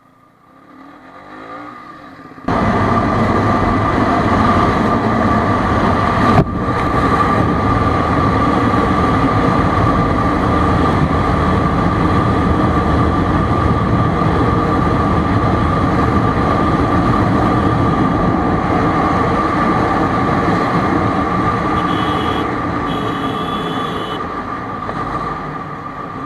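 Bajaj Pulsar NS200 motorcycle riding along, its engine running under steady wind noise on the bike-mounted camera's microphone. The sound builds over the first couple of seconds, jumps sharply louder, has a single click about six seconds in, and eases off near the end.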